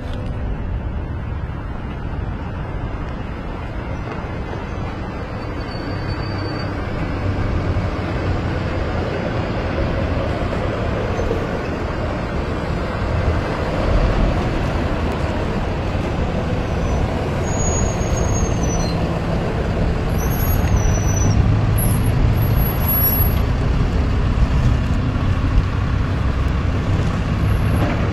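A procession of heavy tow trucks driving past, with engine rumble and tyre and road noise growing steadily louder. A few short high squeals come through about six seconds in and again past the middle.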